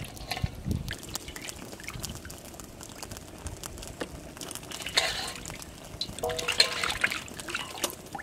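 Water in a metal basin splashing, trickling and dripping as live eels are handled and lifted out, with two louder splashes about five seconds in and again a second or two later.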